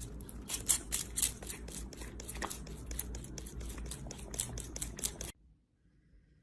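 Rapid, irregular clicking and tapping over a low hum, cutting off suddenly about five seconds in.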